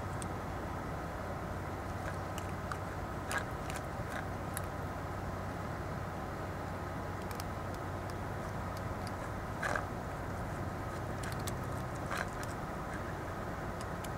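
Cats eating dry kibble: a few scattered short crunches and ticks over a steady background hum.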